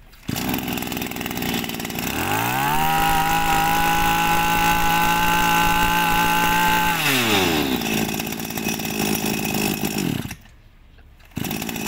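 Komatsu 26 cc two-stroke brush cutter engine idling, then revved up to full throttle, held steady for about four seconds and let fall back to idle. The sound drops out for about a second near the end and returns at idle.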